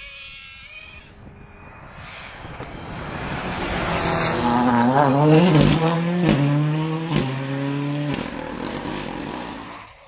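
Rally car driven hard at speed, engine revving up and down with a sharp crack at each of about four gear changes, loudest about halfway through and fading near the end, over a hiss of tyre noise.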